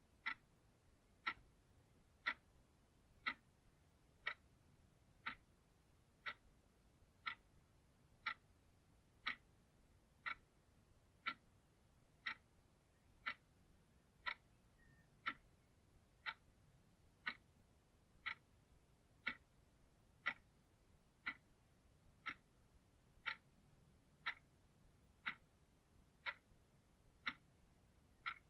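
Clock ticking steadily, one short sharp tick each second.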